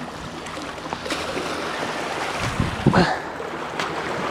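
Sea water washing and rushing against the shore, a steady noisy wash that grows a little louder about a second in, with a few light knocks and a brief louder surge about three seconds in.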